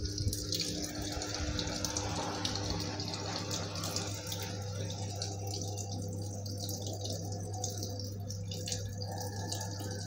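Water running steadily into the drum of a Samsung 7 kg top-load washing machine as it fills at the start of a wash cycle.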